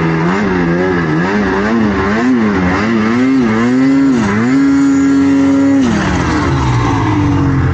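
Snowmobile engine revving up and down over and over as the rider works the throttle through deep powder, holding a steady high rev for a moment about four seconds in, then dropping back.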